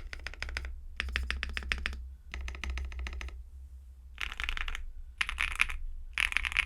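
Akko ACR Pro 68 mechanical keyboard with Akko Cream Soda switches on a polycarbonate plate and GMK Soyamilk clone keycaps, foam-stuffed, being typed on in six short bursts of rapid keystrokes with brief pauses between. The last three bursts are denser and sharper.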